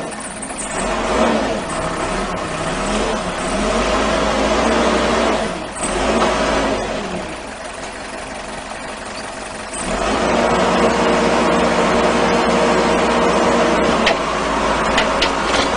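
Caterpillar backhoe loader's diesel engine running, its revs rising and falling: quieter for a few seconds around the middle, then louder from about ten seconds in. A few sharp clicks near the end.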